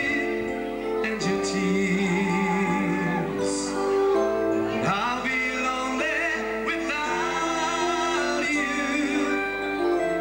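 Music with a male singer holding long, wavering notes over sustained instrumental chords.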